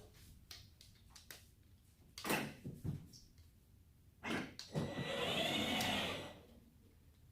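Kids' 12 V ride-on car's two electric drive motors and gearboxes whining as it drives at low speed, the whine rising and falling in pitch for about two seconds past the middle, after a short clunk a couple of seconds in.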